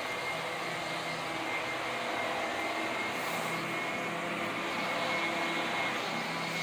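A steady machine hum, with a thin high whine held over it and low tones beneath, unchanging throughout.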